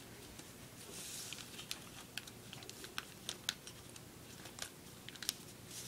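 Paper being folded and creased by hand: faint rustling and crinkling with scattered light clicks as the origami sheet is pressed and flattened.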